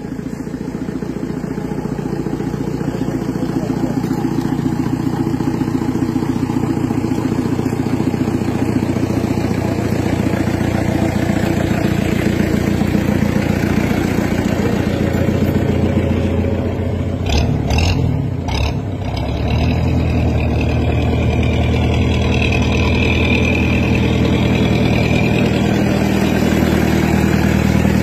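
A jeep's engine running at low speed as the jeep creeps over fresh tarmac, with a few sharp knocks about two-thirds of the way through.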